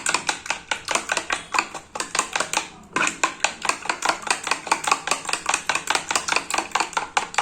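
Egg and spiced-water mixture being beaten in a bowl: a utensil clinks rapidly against the bowl's sides, several strokes a second, with a brief pause about three seconds in.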